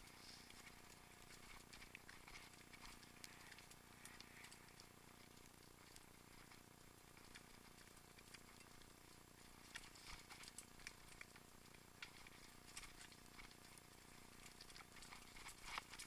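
Faint rattling and clicking of a mountain bike rolling down a loose, stony trail, the clicks coming thicker in the second half.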